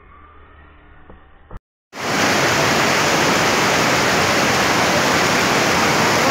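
Mountain stream rushing over boulders, a loud, steady wash of white water that cuts in suddenly about two seconds in after a brief dropout. Before it there is only faint, quiet background.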